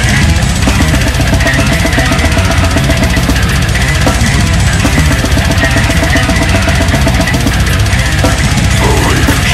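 Brutal death metal played loud, with fast, dense drumming and rapid bass drum strokes under heavy low-end instruments.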